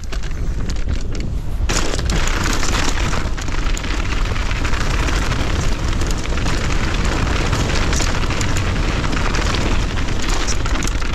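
Wind buffeting an action camera's microphone as a mountain bike goes fast, mixed with its tyres rolling over dirt and gravel. The rush gets much louder about two seconds in and stays loud as the rider builds speed.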